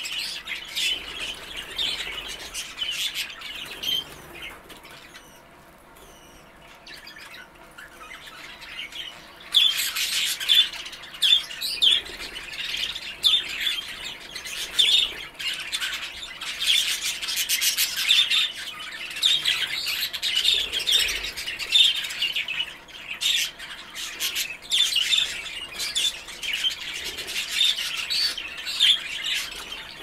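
A flock of exhibition budgerigars chattering, a dense run of quick chirps and squawks. The calls thin out about five seconds in, then come back loud and thick at about nine and a half seconds.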